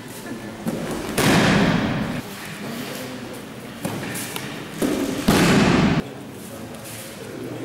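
Judo breakfalls on tatami: a judoka thrown to the mat lands with a loud thud and slap, twice, about four seconds apart, each ringing briefly in the hall.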